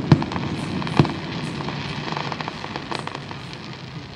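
Fireworks going off: two sharp bangs in the first second, then scattered crackling pops that thin out and fade.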